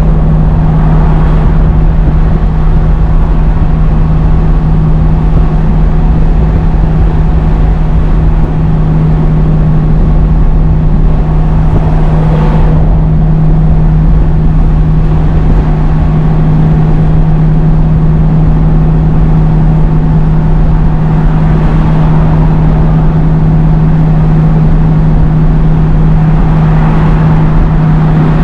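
Scania G500 truck's engine droning at steady revs, held in 7th gear on a long steep descent with a 56-tonne load, holding its speed on the engine rather than the foot brakes.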